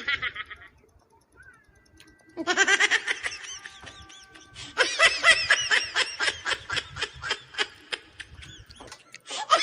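Laughter in runs of quick, high-pitched pulses: one starting a couple of seconds in, a longer run from about halfway, and another near the end.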